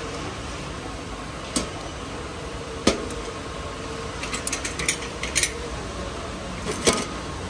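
Clicks and knocks of a corded rotary hammer being picked up and hung on metal display hooks, its plastic body and cord knocking against the shelf and hooks. There is a sharp knock about three seconds in, a quick run of small clicks shortly after, and another sharp knock near the end, over a steady background hum.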